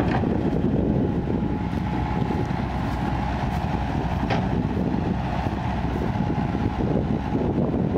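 Kobelco crawler excavator's diesel engine running steadily under working load, with a faint steady whine over it, as the machine dumps soil into a dump truck and swings back to dig. A single sharp knock about four seconds in.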